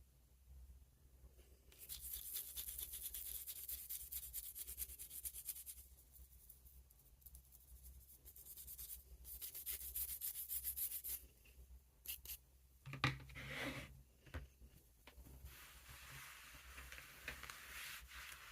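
Fast, scratchy rubbing or scrubbing strokes on a small pocket knife, in two long spells, with a few clicks and knocks about two-thirds of the way through and a softer rub near the end.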